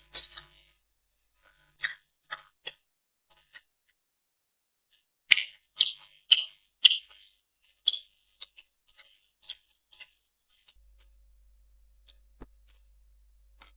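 Close-miked mouth sounds of eating noodles: a string of short, wet clicks from chewing, some spaced out and some in a quick cluster, then a quiet stretch near the end.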